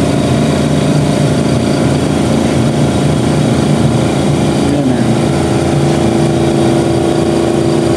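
A steady mechanical drone from a running machine, a constant noise with several unchanging hum tones, holding the same level throughout.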